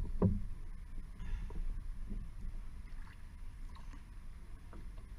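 Paddle strokes and water sloshing against the hull of a single outrigger canoe, heard close up, over a low steady rumble. The loudest sounds are two heavy thumps right at the start, with fainter, irregular splashes after.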